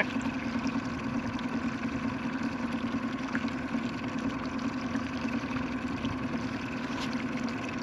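Boat motor running steadily at trolling speed, a constant even drone.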